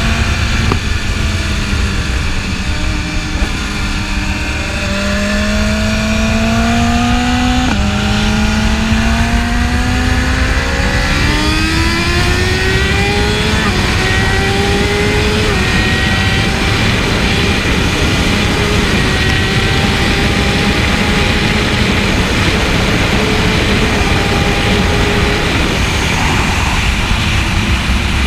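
BMW S1000RR inline-four sport bike engine accelerating hard through the gears: the pitch climbs and drops sharply at each upshift, three times in the first half, then holds high and nearly steady at speed.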